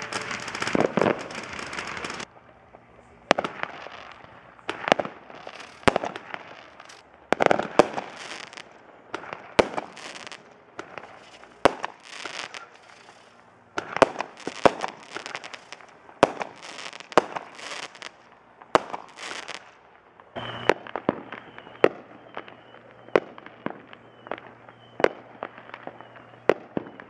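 Fireworks going off: a dense crackling burst, then a string of sharp bangs roughly one a second, with fizzing crackle between them.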